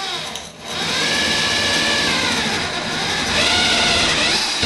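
Electric drill with a spade bit boring into a wooden fire block, its motor speed rising and falling as it is fed slowly. It picks up a little under a second in and stops near the end.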